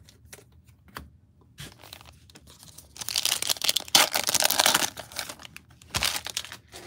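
Plastic wrapper of a Donruss Optic football card pack being torn open and crinkled by hand: a loud crackling burst about three seconds in that lasts some two seconds, then a shorter crinkle about six seconds in.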